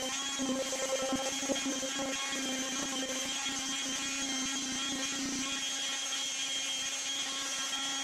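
Electric palm sander running steadily as it sands an epoxy-fiberglass surface: one even, unbroken hum with a high whine.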